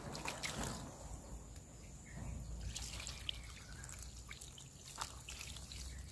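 Water trickling faintly from a small plastic mug over hands rinsing pieces of cut rohu fish, with scattered drips and small splashes.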